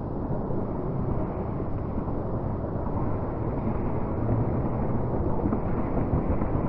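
Steady low, muffled rumble of indoor sports-hall ambience while sprinters run past, with no distinct footfalls or voices standing out.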